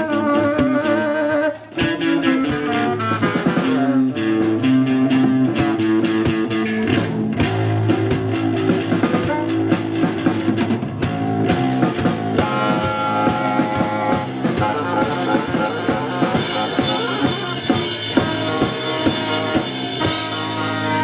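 A live rock band plays an instrumental passage on drum kit, electric guitar and saxophone, with a brief drop in sound about two seconds in.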